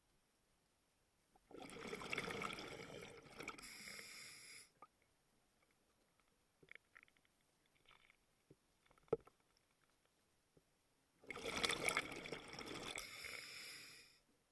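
Scuba diver's regulator exhaling underwater: two bursts of bubbles, each about three seconds long, roughly ten seconds apart, with a few faint clicks in the quiet between breaths.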